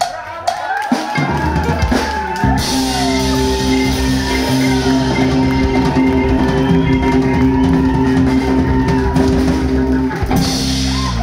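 Live rock band playing loudly: a drum fill with cymbal crashes opens, then the full band comes in with drum kit, bass, electric guitar and keyboard, and the playing stops abruptly near the end.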